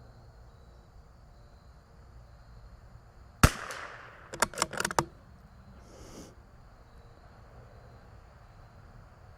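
A single shot from a CZ 457 .22LR bolt-action rifle about three and a half seconds in, followed about a second later by a quick run of metallic clicks as the bolt is worked to cycle the next round.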